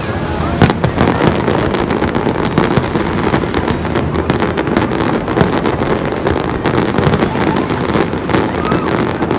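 Fireworks display: a dense, continuous run of aerial shell bursts and crackling, one bang after another with no pause.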